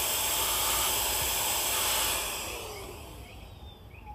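MECO ME-CR1 cordless vacuum running with a steady airy hiss as it sucks small hive beetles off a brood frame. About two seconds in it is switched off and the motor winds down, its pitch falling.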